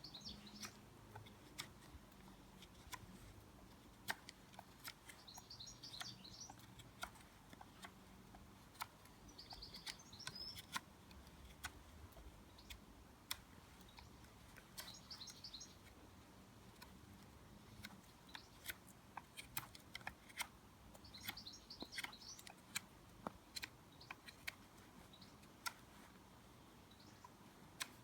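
Knife cutting and shaving wood while sharpening the points of a wooden fishing spear: faint, irregular clicks and scrapes. A small bird's short, high trilled song comes in about every five seconds.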